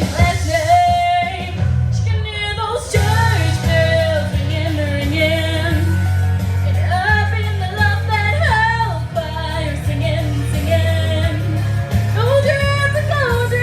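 A young girl singing a country-pop song over instrumental accompaniment with a steady bass line.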